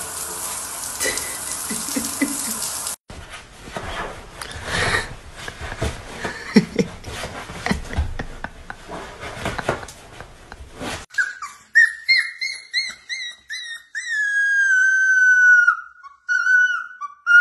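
A puppy howling: a run of short high yelps about two-thirds of the way in, settling into long, slightly falling howls. Before that, scattered knocks and a noisy hiss.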